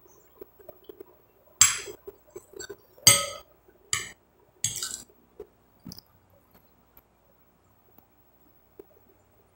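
Metal spoon clinking and scraping against a glass plate while scooping food: four sharp ringing clinks within about three seconds, the first two loudest, then only faint soft sounds.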